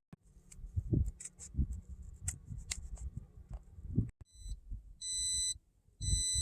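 Irregular low thumps and light clicks, then from about four seconds in a high electronic beep that repeats about once a second, each beep lasting about half a second, like an alert chime.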